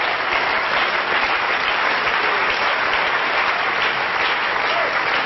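Studio audience applauding, a steady dense clapping that holds for the whole stretch.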